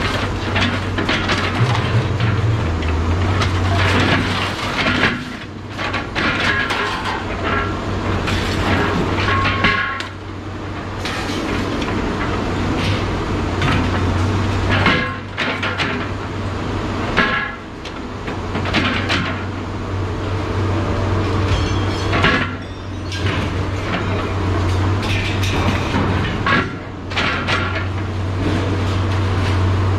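A steady low engine hum with irregular metallic clanks and knocks of scrap being moved.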